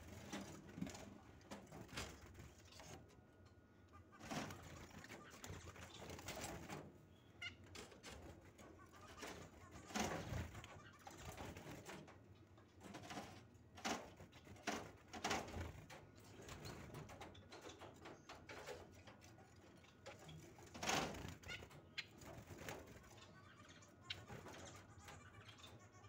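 Double-barred (owl) finch giving soft, scattered calls, with a few louder knocks or rustles now and then.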